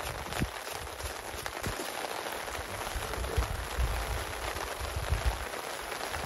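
Steady rain hiss, with scattered sharp clicks and low knocks close by.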